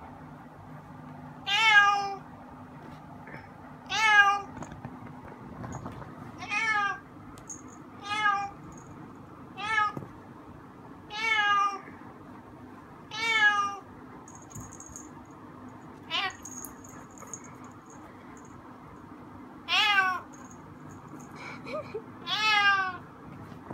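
A tabby-and-white domestic cat meowing over and over: about ten short meows, each a second or less, a couple of seconds apart.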